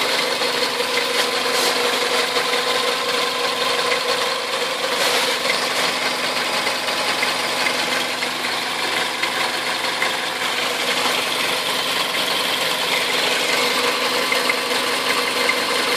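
Toyota 1ZZ four-cylinder petrol engine running steadily at idle with an engine knock.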